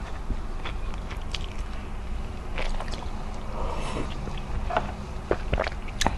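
Close-miked eating sounds: chewing with small wet mouth clicks, and a sip of chicken tinola broth slurped from a plastic tub about four seconds in, over a steady low hum.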